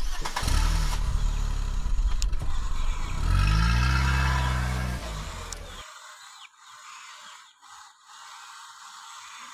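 A car engine sound running low, revving up and back down between about three and five seconds in, then cutting off suddenly about six seconds in. After that only a faint background with a few small ticks is left.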